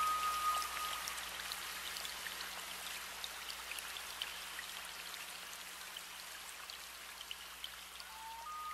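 Surf washing up the sand: a steady fizzing hiss full of tiny crackles that fades gradually. A thin held whistle-like tone sounds in the first second and again near the end.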